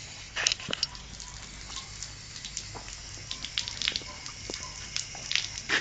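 Water from a hose wand running into a horse's mouth, with irregular wet clicks and crackles as the horse mouths the wand, over a faint steady hiss.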